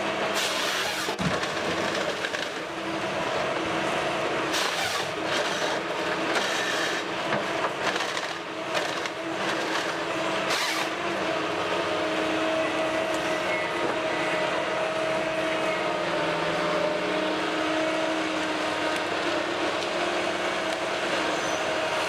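Heavy machinery engine running steadily with a held whine, and a few short harsh noises in the first half.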